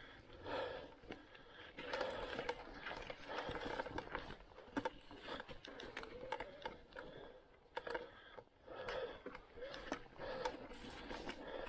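Mountain-bike tyres rolling over dry fallen leaves and twigs on a forest trail, a dense, irregular crackling and clicking with recurring rustling swells.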